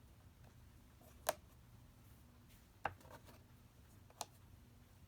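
Three light clicks of magnet letters being picked up and set down while a word is built, about a second and a half apart, over quiet room tone.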